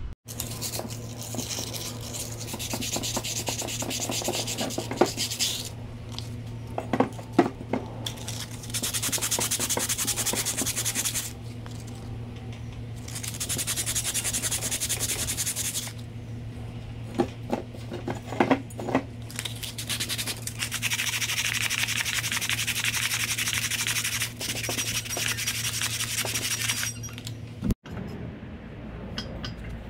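Metal being cut off a wheel hub to free the old bearing race: a rasping, grinding noise in spells of a few seconds, with a few sharp knocks between them, over a steady low hum. It cuts off suddenly near the end.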